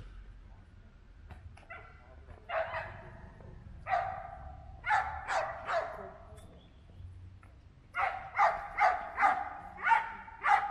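A dog barking in short, sharp barks: one, then another, then three in quick succession, and a run of about six near the end.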